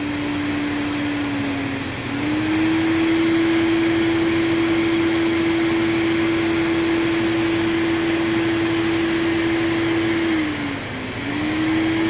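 Hoover Supremacy canister vacuum's motor running with a steady whine and rush of air. About two seconds in its pitch dips briefly and then climbs to a higher speed, where it holds. Near the end it sags and rises again.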